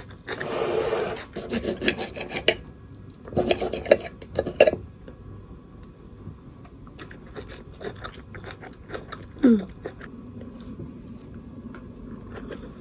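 Chopsticks and a metal spoon clinking and scraping against a ceramic plate while eating, with a short scrape at the start and clusters of sharp clicks over the next few seconds.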